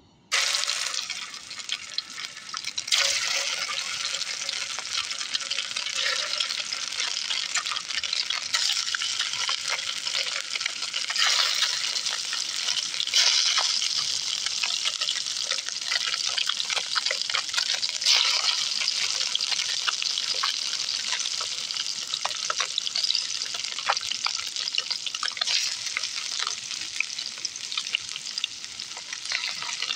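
Fish fillets sizzling and crackling as they fry in hot oil in a camp-stove pan. The sizzle starts suddenly just after the beginning and swells louder several times as more fillets are laid into the oil.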